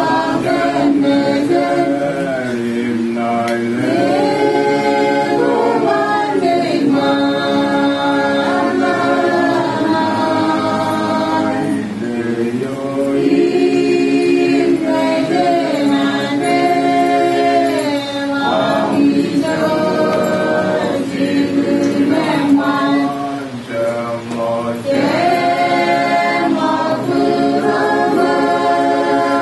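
A group of mourners singing a hymn unaccompanied, mixed voices in harmony. They hold long notes in phrases, with short pauses for breath between them.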